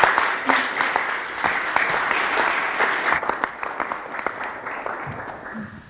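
Lecture audience applauding, many hands clapping; the applause fades away gradually toward the end.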